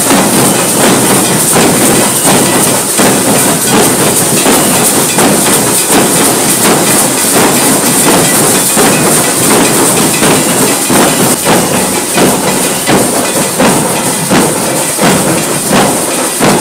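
A group of large Bengali dhak (joydhak) drums beaten with sticks in a fast, steady rhythm, loud and dense with strokes.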